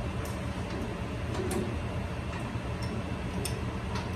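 Steady low machinery hum with a few faint, scattered ticks of tools and metal parts while a large axial fan and its motor are fitted.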